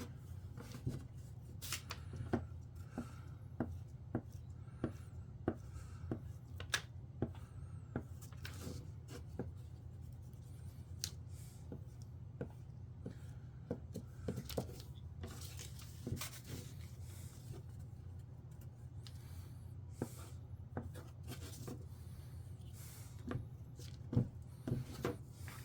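Glue stick being rubbed back and forth over a thin craft-plywood sheet, with scattered clicks and taps as the pieces are handled, over a steady low hum.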